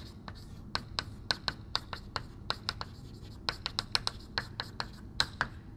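Chalk writing on a chalkboard: a quick, irregular run of sharp taps and scratches as letters are written, with a short pause about three seconds in.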